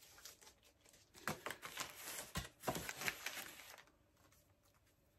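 Packing tape being peeled and torn off a comic book's wrapping: an irregular run of crackles and rustles that stops a little before the end.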